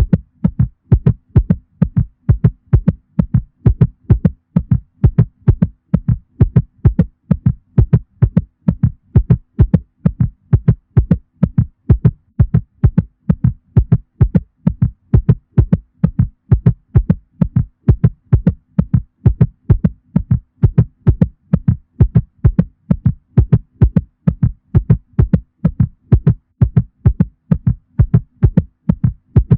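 A cat's heartbeat played as a looped sound effect: fast, evenly spaced low beats that repeat without a break.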